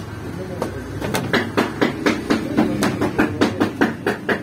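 A quick series of about a dozen knocks, roughly four a second, from a baker handling balls of dough on a floured metal tray.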